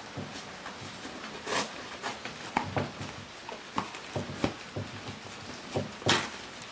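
Cardboard shipping box being torn open by hand: irregular scrapes, crinkles and rips of packing tape and flaps, with one louder rip about six seconds in.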